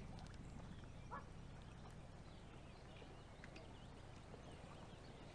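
Near silence: faint outdoor ambience with a low steady rumble and a few faint, short high-pitched sounds.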